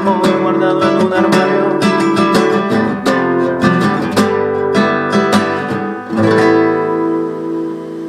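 Classical guitar strummed through the closing chords of a song. A final chord comes at about six seconds in and is left to ring and fade out.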